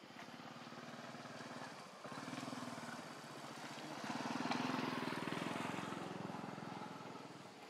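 A motor vehicle's engine passing by: it swells to its loudest about halfway through and fades toward the end.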